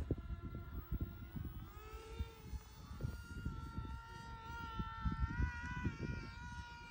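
Electric motor and propeller of a small foam-board RC plane whining steadily in flight, the pitch drifting slightly up and down with the throttle. A gusty low rumble of wind buffets the microphone underneath.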